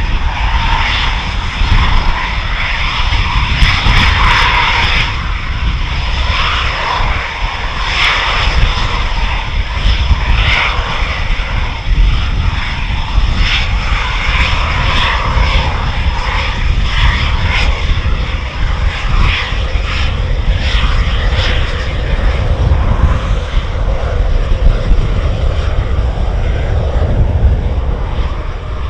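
Eurofighter Typhoon's twin Eurojet EJ200 turbofans running at taxi power as the jet taxis and lines up: a loud, steady jet noise with a thin high whine on top.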